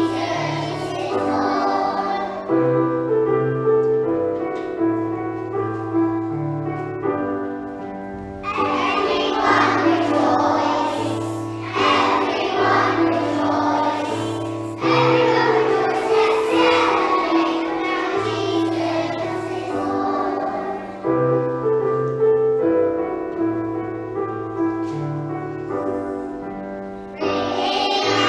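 Group of young children singing a Christmas song together over an instrumental backing; the voices come in for phrases between stretches where the backing carries on alone.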